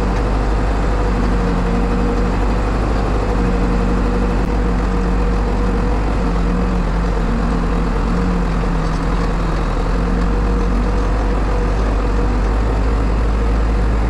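Diesel engine of a New Holland backhoe loader running steadily while the machine pushes a van, its pitch wavering slightly up and down.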